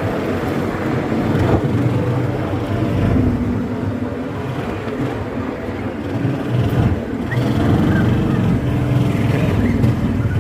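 Gator utility vehicle's engine running, its steady low drone rising and falling slightly in loudness.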